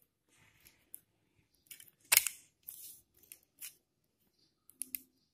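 Hands handling a 9-volt battery and its snap connector in a plastic multimeter case: scattered clicks and scrapes, the loudest a sharp click about two seconds in.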